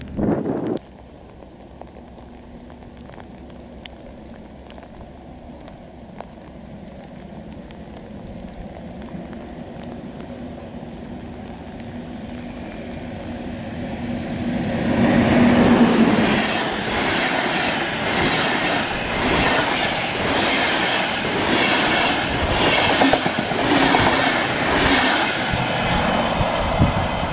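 An electric locomotive hauling Intercity coaches approaches and passes. A hum swells over about fifteen seconds, then the wheels clatter rhythmically over the rail joints as the coaches run by. A short burst of train noise cuts off under a second in.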